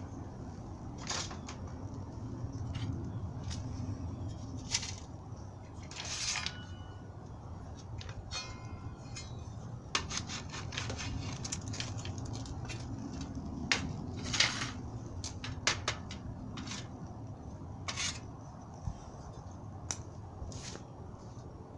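Burning fatwood crackling, with irregular sharp pops and snaps over a low steady rumble.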